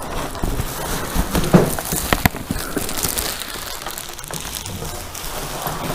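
Styrofoam packing rustling, crinkling and scraping as a cooler is worked out of its cardboard box, with scattered sharp clicks and a couple of louder snaps.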